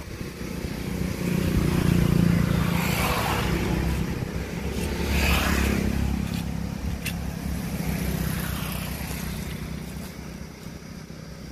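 A motor vehicle's engine running close by, a low rumble that swells over the first two seconds, peaks again around the middle and slowly fades toward the end.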